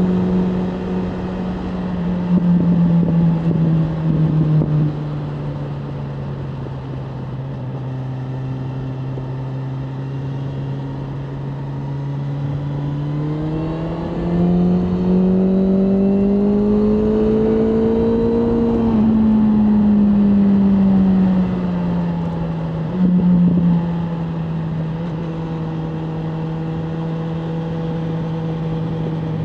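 BMW M1000R Competition's inline-four engine under way, running at a steady pitch, then climbing in revs about halfway through and easing back down a few seconds later.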